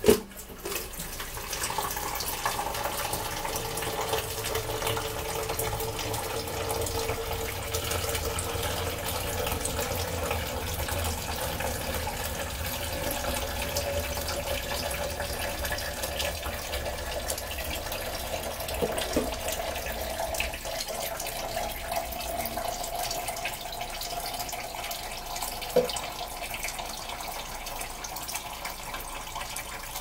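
Kitchen sink faucet running steadily, water splashing into the sink while hair is rinsed under it, with a faint tone slowly rising in pitch. A sharp knock right at the start and two light knocks later on.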